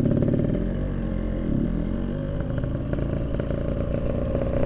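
Yamaha RX-King 135cc two-stroke single-cylinder motorcycle engine running steadily.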